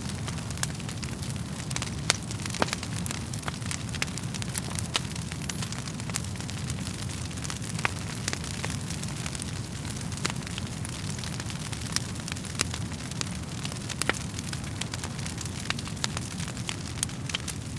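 Wood fire burning in a fireplace: a steady low rumble of the flames with frequent sharp, irregular crackles and pops from the burning logs.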